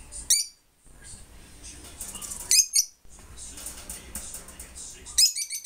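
Peach-faced lovebirds giving sharp, high-pitched squeaky calls: one short call just after the start, another about two and a half seconds in, and a rapid run of chirps near the end.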